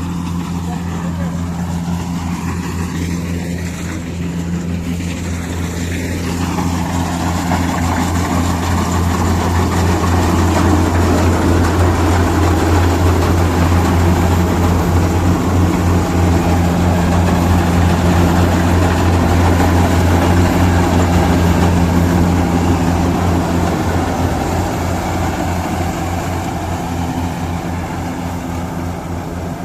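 Kubota DC-60 rice combine harvester running steadily, its diesel engine humming under a rushing mechanical noise. The noise grows louder from about six seconds in, peaks midway, then fades near the end.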